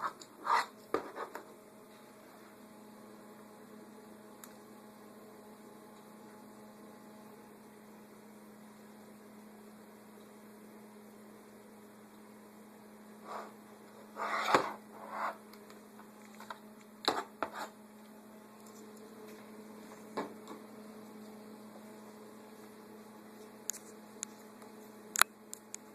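Steady low electrical hum with a few short, louder sounds scattered through it, the loudest cluster about halfway through.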